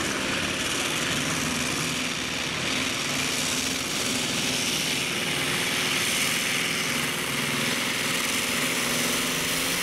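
Modified pulling tractor's big exposed engine running loud and steady at high revs while hauling the weight sled down the pulling track.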